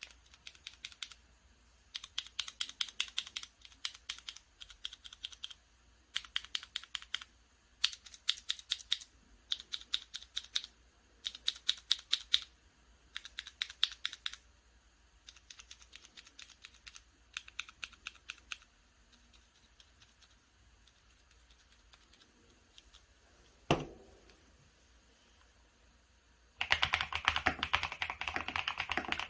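Keystrokes on a FEKER IK75 gasket-mount mechanical keyboard with Akko CS Silver linear switches, double-shot PBT OSA-profile keycaps and Thinsulate dampening, typed in quick bursts with short pauses. The typing goes softer for a few seconds, a single heavier knock comes after a pause, and near the end a long run of faster, louder typing begins.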